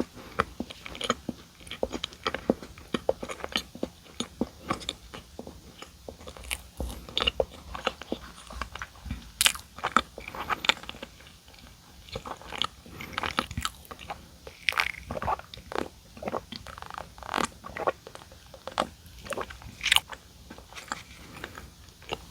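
Close-miked biting and chewing of donuts: a steady run of irregular wet clicks and short crunches from the mouth.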